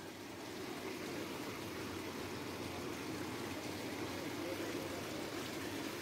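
Fast floodwater rushing over a submerged road, a steady rushing noise.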